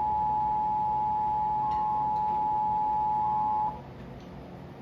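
Emergency Alert System attention signal from a NOAA Weather Radio broadcast: a steady two-tone alarm just below 1 kHz that cuts off suddenly about three and a half seconds in. It comes just ahead of a severe thunderstorm warning message.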